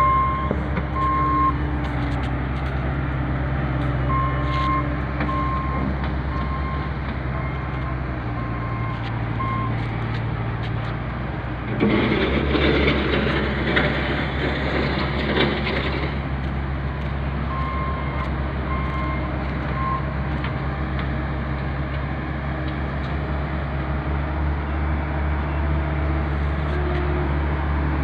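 An engine running steadily with a low drone, with a high electronic beep repeating in short runs, about twice a second, several times. A louder rushing noise rises for about four seconds midway.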